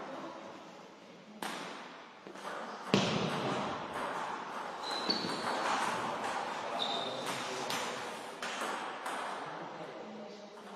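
A table tennis rally: the celluloid ball clicking off the paddles and the table, about two hits a second and echoing in a large hall. The hits start with the serve about a second and a half in, and there are two brief high squeaks along the way.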